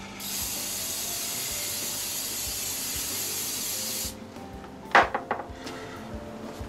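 Aqua Net hairspray aerosol can spraying in one steady hiss for about four seconds, wetting the model tree's branches so the turf flock will stick. A short sharp knock follows about five seconds in.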